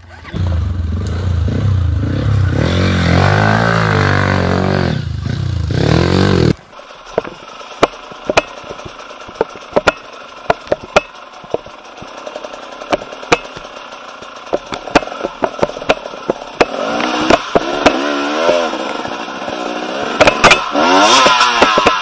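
Dirt bike engines. First a trail bike revs hard close by, its pitch rising and falling. About six and a half seconds in the sound changes abruptly to riding a rough forest trail: the engine runs lower under many sharp knocks and clatters from the bike jolting over the ground, and the revs climb again near the end.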